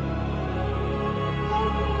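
Background music of slow, held chords over a low bass note.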